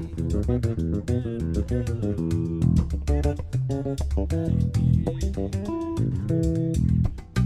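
Instrumental northeastern Brazilian music: a bass guitar playing melodic, chord-like lines over steady, rapid hand-played percussion strikes.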